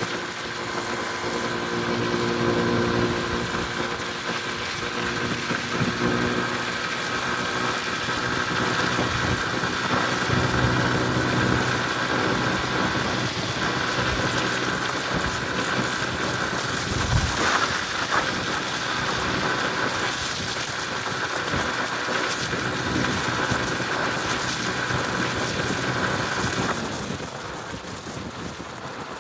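Motorcycle on the move: the engine running steadily under heavy wind and road noise, with one sharp thump about seventeen seconds in and the sound easing off near the end.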